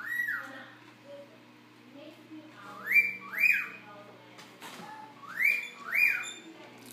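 Two-part wolf whistle, a rising note followed by a rise-and-fall, repeated about every two and a half seconds.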